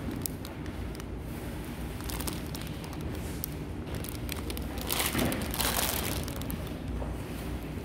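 Clear cellophane flower wrapping crinkling and rustling, with scattered crackles and a louder stretch of crinkling about five seconds in.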